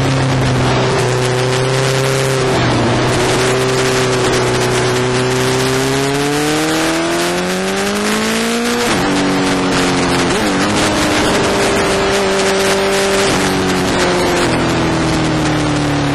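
Suzuki GSX-R1000 inline-four engine heard from on board while riding at speed, with wind rushing over the microphone. The revs climb steadily for a few seconds past the middle and then drop sharply at about nine seconds, with shorter dips in engine speed later.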